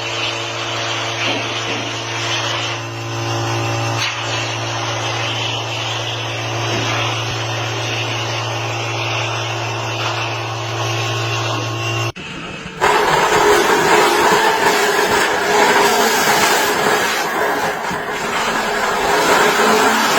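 A motor-driven machine running with a steady hum for about twelve seconds, then an abrupt change to a louder, rougher noise.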